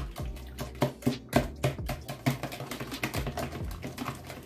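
Fork beating eggs and buttermilk in a plastic bowl, its tines clicking against the side and bottom of the bowl about three to four times a second in an uneven rhythm.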